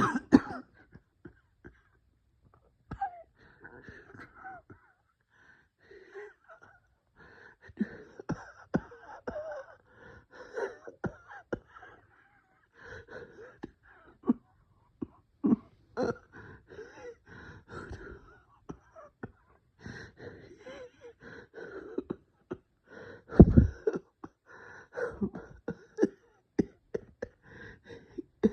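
A person wheezing and gasping for breath in a bronchospasm: irregular, labored breaths one after another, with a few sharper, louder bursts, the loudest about two-thirds of the way through.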